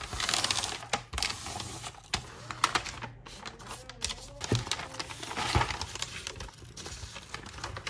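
Stiff wrapping paper rustling and crackling as it is folded by hand around a flat canvas board, with sharp clicks and light taps against the table as the folds are pressed down.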